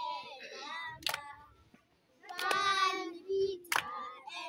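A group of children singing an action song together in short phrases, with three sharp hand claps, about one every second and a quarter.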